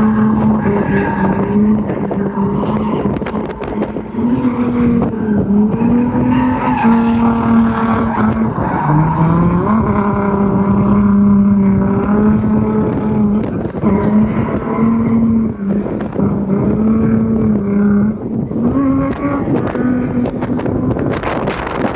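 Drift car engine revving hard, its note stepping up and down again and again with the throttle, over tyre skidding and squeal as the car slides.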